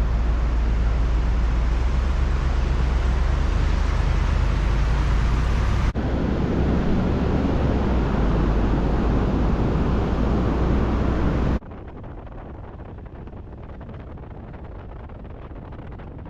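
Pickup truck driving: steady road and wind noise with a deep low hum. It comes in three cut-together stretches, with sudden changes about six seconds in and again near twelve seconds, where it drops to a much quieter level.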